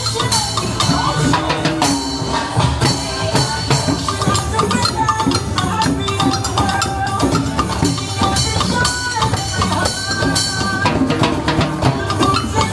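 Upbeat music with a steady drum beat and percussion.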